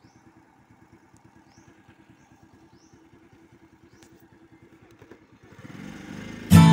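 Motorcycle engine running at low revs, a faint, fast, even putter. Just before the end, strummed acoustic guitar music comes in loudly.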